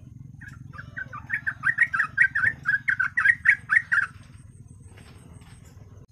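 Sooty-headed bulbul (trucuk) calling in a rapid chattering run of short notes, about six a second, for about three seconds, over a steady low hum that cuts off at the end.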